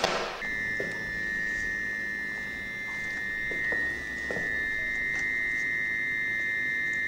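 Steady, high-pitched electronic buzzer tone from the sound sculpture's battery-powered circuit. It sets in about half a second in and holds unbroken, with a few faint taps of handling under it.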